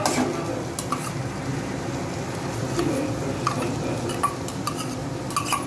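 A steel spoon scraping and clinking against a steel bowl as soya granules are scraped into a steel kadai, with several short ringing metallic clinks. A steady sizzle of onion and tomato frying in oil runs underneath.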